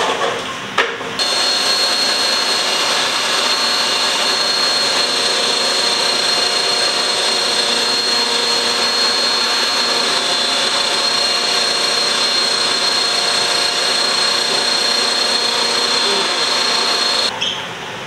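Electric kitchen blender blending chopped vegetables. It switches on about a second in, runs steadily with a high whine, and cuts off shortly before the end.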